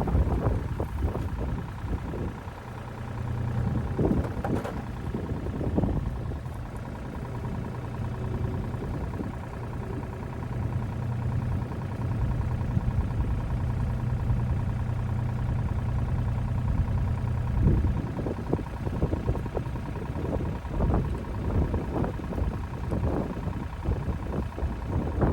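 An engine idling steadily, with wind buffeting the microphone in gusts, heaviest near the start and the end.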